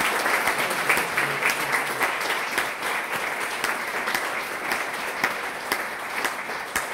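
Audience applauding: many hands clapping in a dense, steady patter that eases slightly toward the end.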